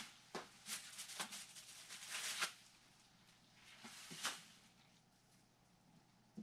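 Rustling and crinkling of layup materials being handled by hand, with sharp clicks mixed in. It comes in two bouts: a longer one in the first two and a half seconds and a shorter one about four seconds in.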